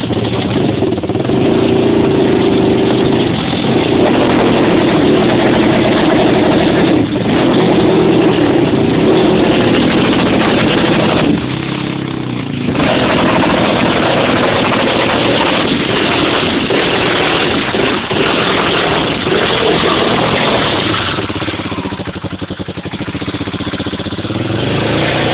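Quad bike (ATV) engine revved hard and repeatedly as the stuck machine churns through mud and water, easing off briefly about twelve seconds in.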